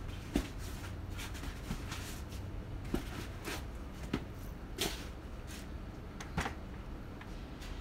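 Handling noise as a moving-head light fixture and its packaging are worked by hand: a few scattered, irregular knocks and clicks over a low steady hum.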